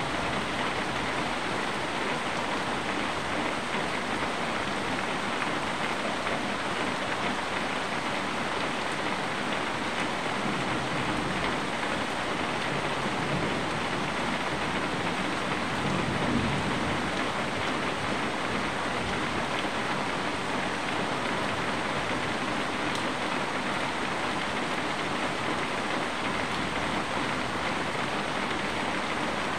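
Steady rain falling on trees, leaves and surfaces outside, an even hiss. A low rumble swells briefly about halfway through.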